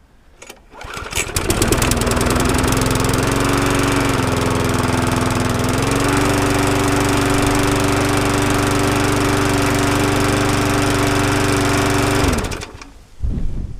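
Briggs & Stratton engine on a Mountfield self-propelled rotary lawn mower starting up, catching about a second in and running steadily. Its speed picks up slightly about six seconds in, and it is shut off near the end.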